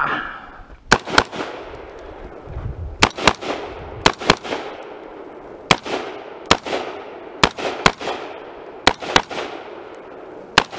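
AR-style semi-automatic rifle being fired, about a dozen sharp shots, mostly in quick pairs, each followed by a short echo.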